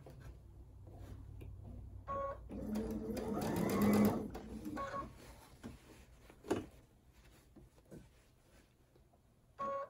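Baby Lock Intuition computerized sewing machine stitching in one short run of about a second and a half, speeding up as it goes, to put in a few stitches. Short electronic beeps come from the machine before and after the run and again near the end, with a sharp click in between.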